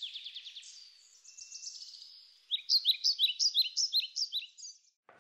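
Small songbirds singing: quick runs of short, high chirps, several a second, that soften about a second in and come back strongly about halfway through.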